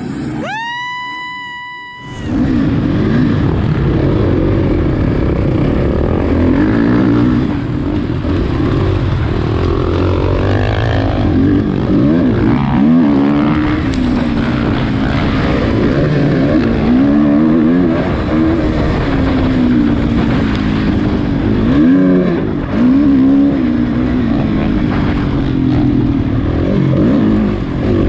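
A brief high steady tone in the first two seconds, then an off-road race vehicle's engine heard on board, revving up and down continuously as it is ridden hard through the course.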